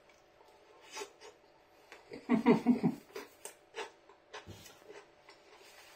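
A person chewing a mouthful of pizza, with scattered wet clicks and ticks of the mouth, and a short hummed sound of enjoyment about two seconds in.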